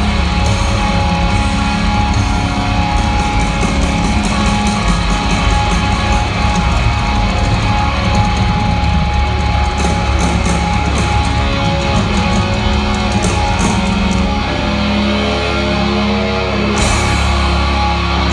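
Live hard rock band playing loud through a large concert PA: distorted electric guitars, bass and drums, heard from the audience. A wavering held note stands out near the end.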